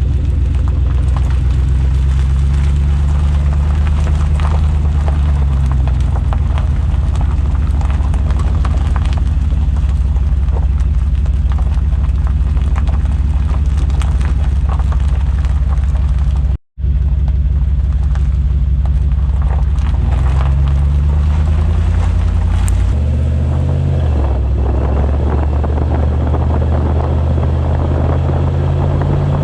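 5.3-liter V8 exhaust through a Flowmaster Super 44 muffler with the resonator deleted, running with a loud, steady low note whose pitch shifts up and down a few times. It cuts out for an instant a little past halfway.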